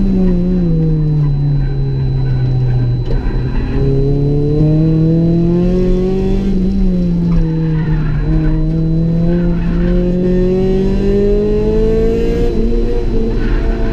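Honda Civic EG's B18C 1.8-litre DOHC VTEC four-cylinder engine under load, heard from inside the cabin: engine speed drops sharply in the first couple of seconds, catches again after a short break, then rises and falls gently. Tyres squeal faintly now and then.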